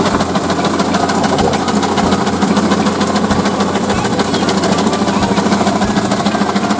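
A steady mechanical hum like an engine or motor running without a break, with faint voices beneath it.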